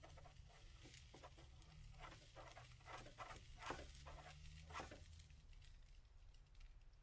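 Faint scraping and tapping of a wooden spatula's edge against a nonstick frying pan as it is pressed down through a hash brown omelet to cut it in half, a run of short strokes that stops about five seconds in.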